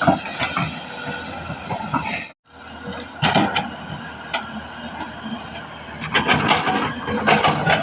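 Tata Hitachi hydraulic excavator working: steady engine noise with metallic clanking and scraping, loudest in a burst about three seconds in and again from about six seconds. The sound drops out for a moment a little over two seconds in.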